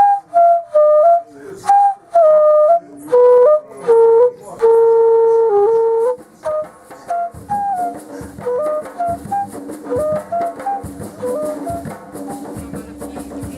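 Background music: a melody of short, separate notes, with one long held note about five seconds in. After that it turns quieter, a tune over a steady bass line with light regular beats.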